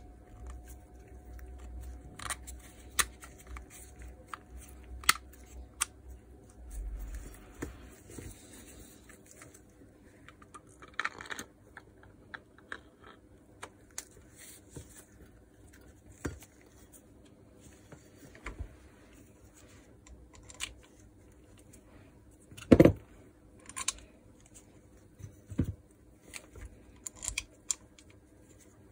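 Scattered clicks, taps and knocks of a Makita GA5034 angle grinder's housing parts being handled and fitted together by hand, with one louder knock a little over 20 seconds in.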